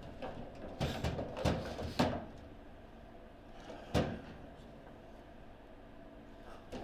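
Table football play: sharp knocks of the ball being struck by the rod figures and hitting the table, several in quick succession in the first two seconds and a single loud knock about four seconds in.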